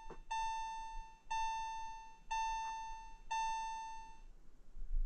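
Electronic chime sounding a single note about once a second, five dings in all, then stopping; a dull thump follows near the end.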